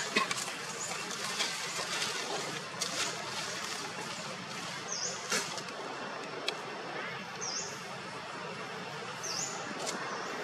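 Outdoor rural background: a steady hiss with scattered rustling clicks, and a bird giving a short high chirp three times, about two seconds apart, in the second half.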